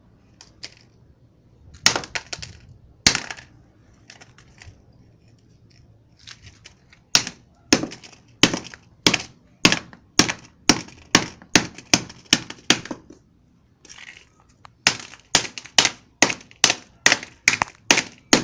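A mobile phone being smashed with repeated hard blows: two single strikes, then a steady run of blows about one and a half a second, a short pause, and faster blows near the end.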